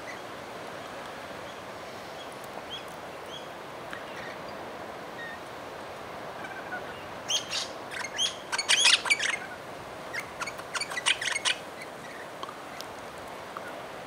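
Parrots calling: two bursts of loud, harsh screeching calls a little past halfway, with a few faint short chirps earlier, over a steady background hiss.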